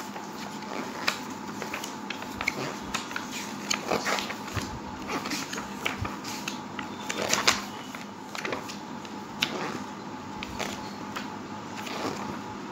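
Glossy paper pages of a children's picture encyclopedia being turned and leafed through by hand: irregular rustling with crisp flicks of paper.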